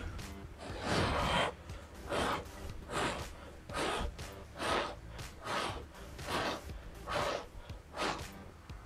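A person blowing short puffs of breath by mouth onto wet poured acrylic paint on a coaster tile, pushing the paint outward. The puffs come about one a second, the first one longer.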